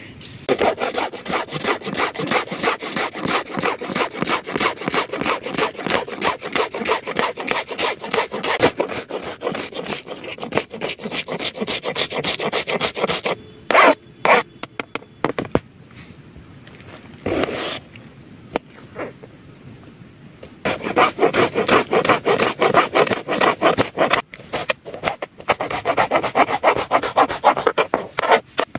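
Serrated kitchen knife chopping fast on a plastic cutting board, a quick run of knife strokes against the board while dicing onion. After a pause with a few single knocks about halfway, a second fast run of chopping while dicing tomato.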